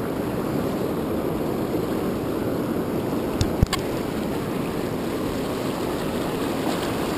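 Steady rush of ocean surf. About halfway through come two short, sharp clicks a quarter second apart.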